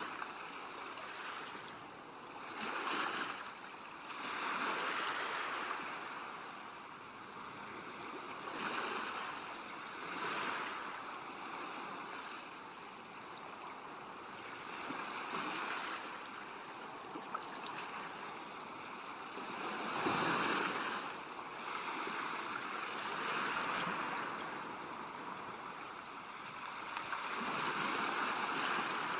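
Calm sea waves washing onto a shore: a hiss of surf that swells and falls back every few seconds, with the biggest swell about twenty seconds in.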